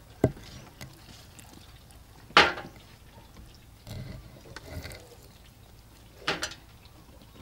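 Wooden pestle working a wet spice paste in a mortar: two firm knocks, one about two and a half seconds in and one near the end, with softer mashing sounds between.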